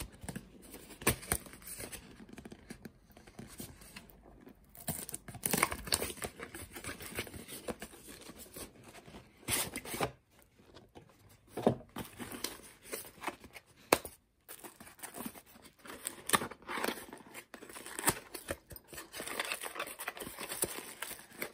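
A cardboard box and its paper and plastic wrapping being opened and handled by hand: irregular rustling and tearing of packaging with scattered taps and knocks.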